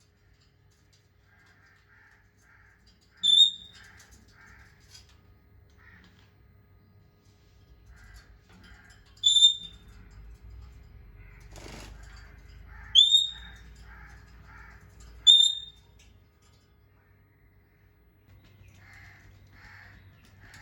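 Parrot giving four short, sharp, high-pitched calls, each sliding slightly down, spaced several seconds apart, with softer low chattering between them.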